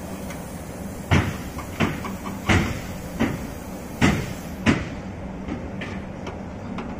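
Six sharp knocks in an even series, a little more than one a second, over a steady low hum, during air-conditioner installation work.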